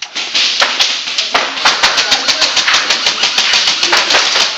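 Airsoft guns firing in rapid, overlapping strings of sharp clicks and snaps, with BBs striking nearby surfaces.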